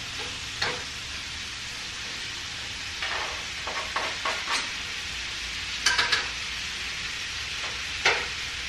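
Steak tips and chopped yellow onion sizzling in a frying pan with a steady hiss, while a utensil scrapes and knocks against the pan as they are stirred. The strokes are loudest about six and eight seconds in.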